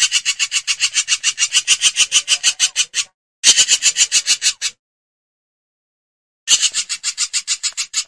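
Hornbill calling in three bouts of fast, harsh rasping pulses, about nine a second. The first bout lasts about three seconds, the second a little over a second, and the third starts about six and a half seconds in.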